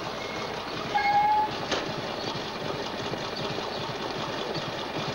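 Motorcycle engine running steadily, with a short, loud horn-like toot about a second in and a sharp click just after.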